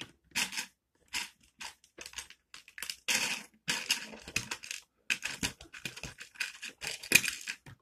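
Loose plastic Lego bricks clattering and scraping in a quick, irregular run of short bursts as a hand rummages through a pile of pieces, the loudest clatter near the end.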